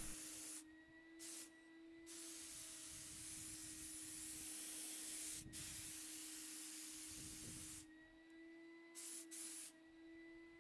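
HVLP paint spray gun hissing as its trigger is pulled: a long pass of about six seconds, with short bursts before and after, over a steady motor hum.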